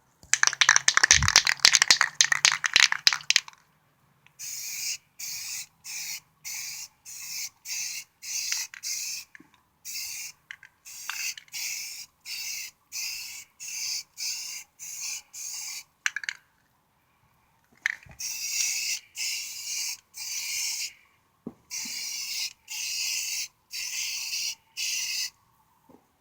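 Rust-Oleum self-etching primer aerosol can shaken with a loud rattle for a few seconds, then sprayed in many short hissing bursts, about one a second, with a brief pause about two-thirds of the way through.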